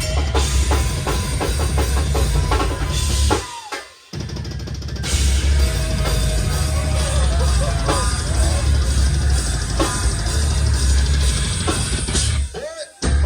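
Hardcore band playing live, the drum kit loudest over a heavy low end. The band stops dead about three and a half seconds in and crashes back in about half a second later, then stops briefly again near the end.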